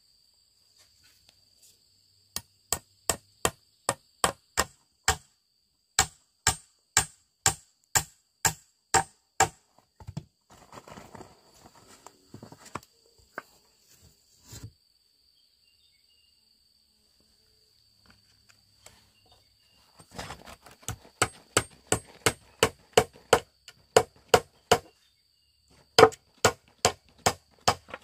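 Steel nails being driven into a wooden beam with the back of an axe head: runs of sharp, evenly spaced blows, about three a second, broken by pauses.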